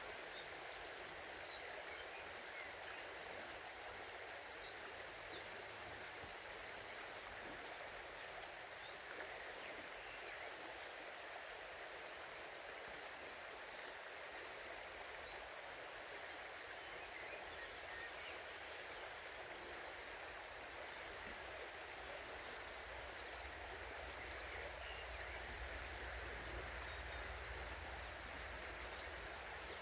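Small river flowing, a steady rushing of water over the riffles. A low rumble comes up under it in the last several seconds.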